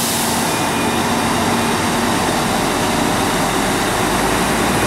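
Rosenbauer Panther 6x6 airport crash tender driving on wet tarmac: its engine runs steadily under a hiss of tyres on the wet surface.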